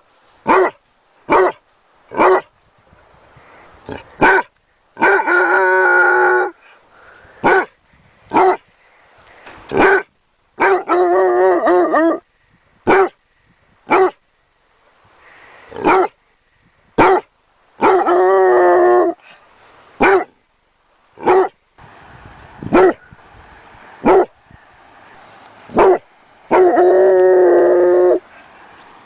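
A Basset hound barking in short single barks about a second apart. Four times it breaks into a drawn-out howl of about a second and a half.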